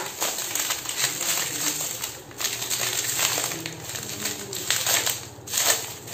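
Bubble-wrap packet crinkling and crackling as it is handled and turned over, with the metal bangles inside clinking lightly against each other. The crackle dips briefly twice.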